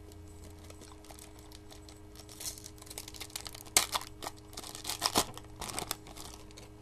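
Foil trading-card pack wrapper crinkling and crackling in the hands as it is torn open, starting about two seconds in, with a couple of sharp cracks, over a steady low electrical hum.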